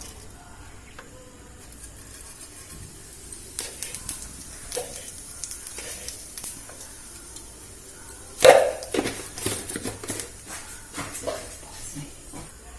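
Cumin seeds sizzling in hot oil in a pan, a faint steady hiss with scattered clicks of a utensil against the pan, and one louder clank about eight seconds in.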